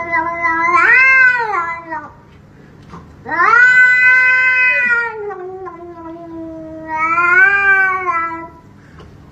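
A grey cat giving long, drawn-out meows at a person's hand: one ending about two seconds in, then a much longer one of about five seconds whose pitch rises again near its end.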